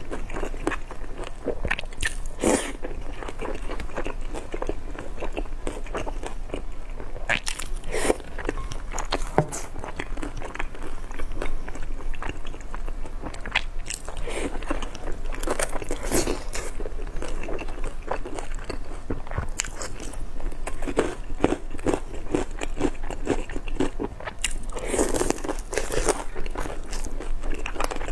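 Close-miked eating of pan-fried pork buns (shengjian bao): crunchy bites into the crisp fried bottoms and wet, crackly chewing, with several louder bursts of biting spread through.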